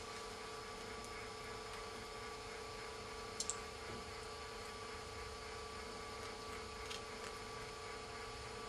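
Steady low hum with a few faint ticks, including a quick double tick about a third of the way in: fingernails picking at the adhesive tape on an iPhone digitiser frame.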